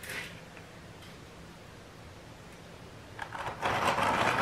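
Engine oil draining from a Yamaha Ténéré 700's sump in a stream into a plastic drain pan, a faint steady trickle right after the drain plug is pulled. About three seconds in, a louder stretch of clicking and rattling as the ratchet and socket are handled.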